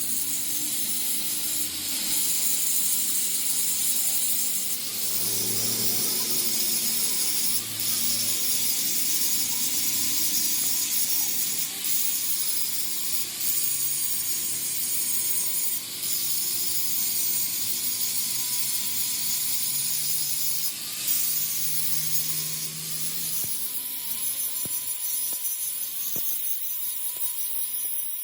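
A power tool working metal: a steady, dense hiss with a thin, slightly wavering whine, running without a break.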